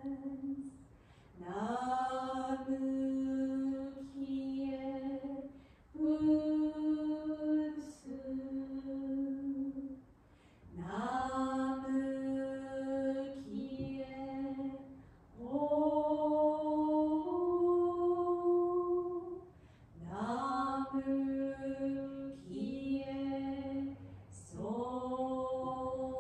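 A single voice chanting in long, steady held notes, mostly on one pitch with occasional steps higher, in phrases of two to four seconds broken by short breaths.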